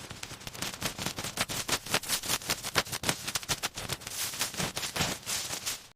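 Rapid, uneven sharp knocks or taps, about six to eight a second.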